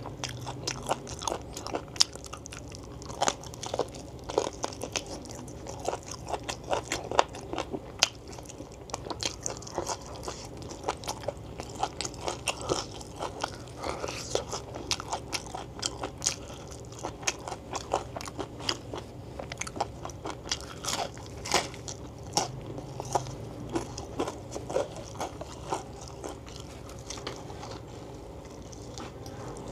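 A person chewing and biting food right at the microphone: a dense, irregular run of sharp crunchy and wet mouth clicks throughout.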